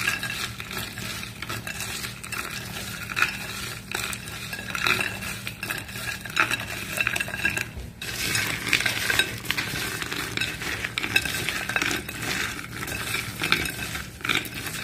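Hands tossing frozen cut okra in a little buttermilk in a glass pie dish: a continuous wet, crackly stirring with frequent small clicks of the frozen pieces against the dish, and a brief break about halfway through.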